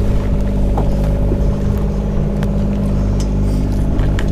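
A fishing boat's engine running with a steady low drone, with a few brief clicks over it.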